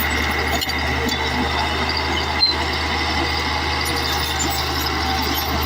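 Caterpillar D8 crawler bulldozer's diesel engine running steadily, with a steady high whine above the engine note.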